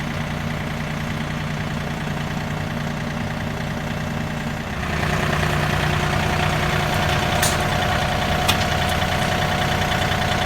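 John Deere 3025E compact tractor's diesel engine running steadily while it drives a Ford 501 sickle bar mower, with a rattling clatter over the engine note. About halfway through the sound grows louder and fuller.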